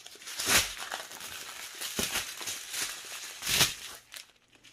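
Small plastic bags of diamond-painting drills crinkling and rustling as they are handled and shuffled, with three louder crinkles about a second and a half apart. The rustling dies down near the end.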